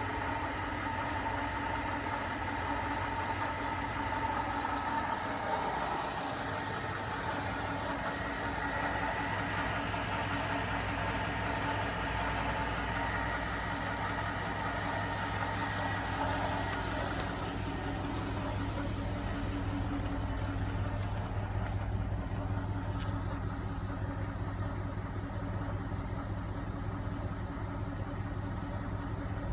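Chevrolet Avalanche's V8 engine idling steadily, a low even hum; a higher whir on top of it fades just over halfway through, leaving mainly the low hum.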